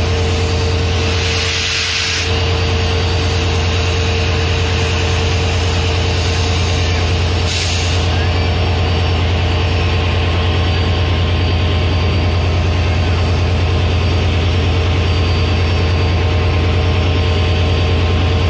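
Diesel locomotives idling with a steady low drone, with two short blasts of air hiss, about a second and a half in and again about seven and a half seconds in.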